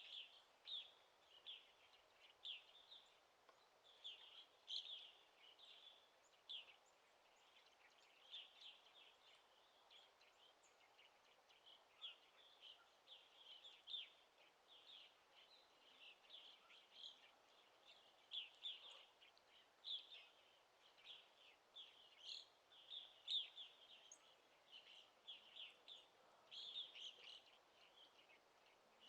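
Forest birds singing: a steady stream of short, high chirps and twitters from several birds, over a faint, even background hiss of forest ambience.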